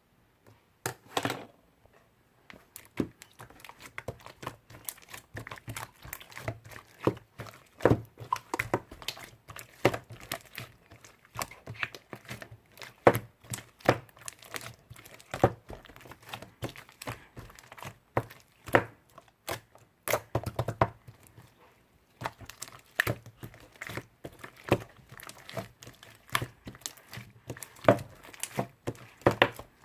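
Slime being squished, pressed and stretched by hand, making many irregular sharp clicks and crackling pops.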